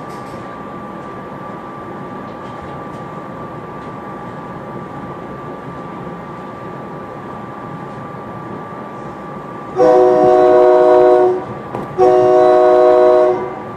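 Silverliner V electric multiple-unit train sounding its horn in two long blasts about ten seconds in, heard from inside the front car. Under the horn runs the train's steady running noise with a constant whine.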